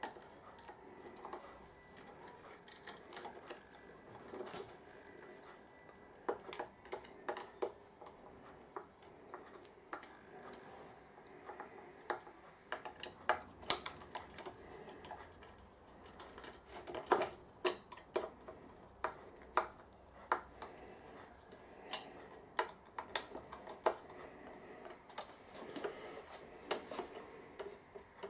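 Small metal clicks and ticks at irregular intervals, growing more frequent partway through: a screwdriver working the terminal screws of an inverter's motor terminal block as crimped fork terminals on the motor wires are fitted and tightened.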